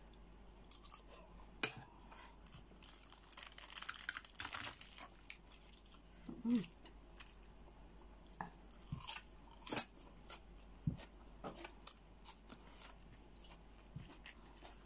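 Close-up eating sounds: chewing and crunching of crab meat and raw salad leaves, heard as irregular wet clicks, smacks and crackly crunches. A short closed-mouth hum comes about six and a half seconds in.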